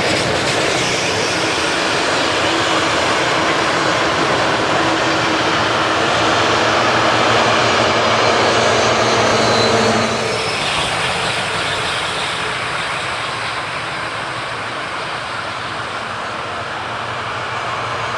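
A train passing on the track: a loud, steady noise that changes abruptly about ten seconds in and goes on somewhat quieter.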